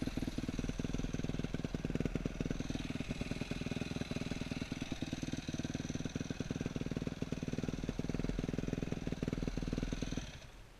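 Yamaha YZ250F's 250cc four-stroke single-cylinder engine running steadily under way on a dirt trail. The sound cuts off suddenly near the end.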